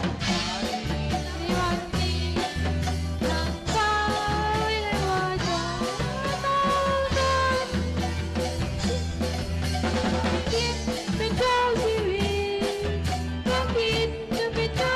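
Women's voices singing a melody into microphones, accompanied by a drum kit and bass with a steady beat.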